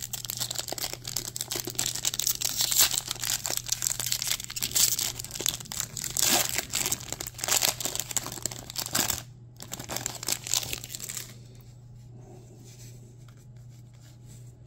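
Foil booster-pack wrapper of a Pokémon card pack crinkling and tearing as it is ripped open by hand. The crackling runs for about nine seconds, comes again briefly, then drops to a quiet shuffle as the cards are drawn out.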